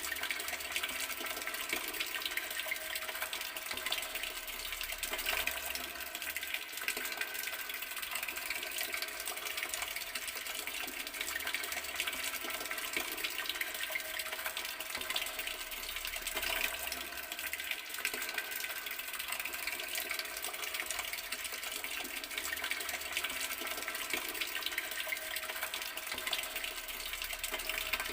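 Water running steadily from a garden tap, a constant unbroken splashing stream.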